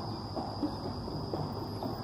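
Footsteps on the wooden planks of a rope suspension footbridge, irregular knocks a few times a second.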